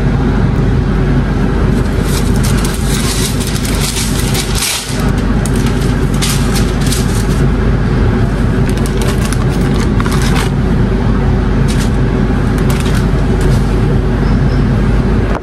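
Baking paper crinkling and rustling in short bursts as it is spread and smoothed on a metal oven tray, over a loud, steady motor hum.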